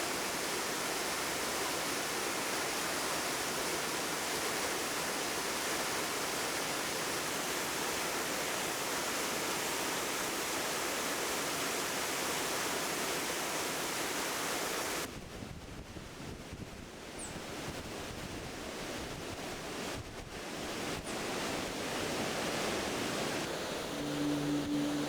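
Waterfall rushing in a steady, even hiss, which cuts off abruptly about fifteen seconds in to a quieter, rougher, deeper rush of water and wind. Near the end a low held tone starts.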